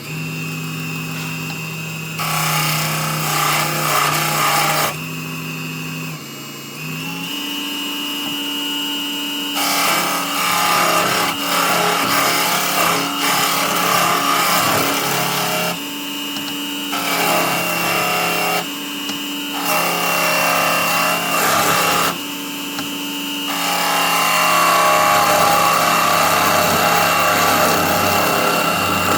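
Small benchtop wood lathe running with a steady motor hum while a hand turning tool cuts the spinning wood blank into a cone. The tool goes on and off the wood in several passes, each a rough scraping cut lasting a few seconds.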